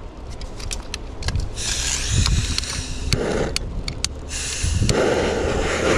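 Butane torch head on a gas canister being lit: a string of sharp igniter clicks, a high hiss of gas from about a second and a half in, then, near the end, a louder steady rushing as the torch flame burns.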